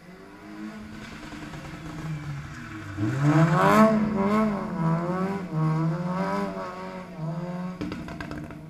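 Rally car engine approaching on a gravel stage and running hard, its pitch rising and falling several times. It is loudest from about three seconds in, with a short patter of sharp clicks near the end.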